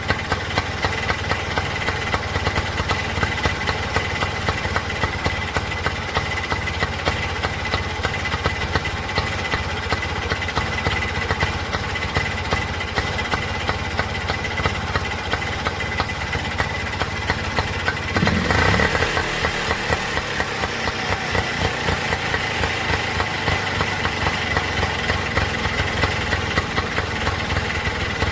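Two-stroke auto-rickshaw engine idling while its carburetor screw is being adjusted to set the idle. About two-thirds of the way through it picks up briefly, then settles back to a slower, more uneven idle.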